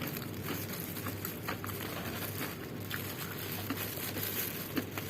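Close-up chewing of crunchy fried tofu: scattered soft crunches and clicks, a few per second at most, over a steady background hum.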